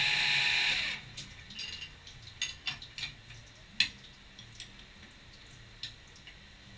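CNC milling machine running, its spindle winding down and stopping about a second in. After that come scattered light drips and sharp ticks as the machine stands stopped, one sharper click in the middle.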